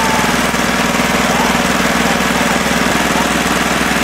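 An engine running steadily and close, loud, with a fast even pulse and a hiss over it.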